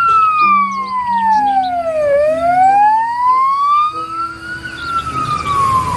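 Police siren wailing in a slow rise and fall: the pitch slides down for about two seconds, climbs back up, then falls again near the end.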